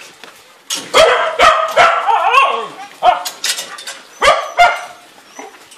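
Several dogs barking in a loud overlapping burst starting about a second in, followed by a few more sharp barks around the three- and four-and-a-half-second marks.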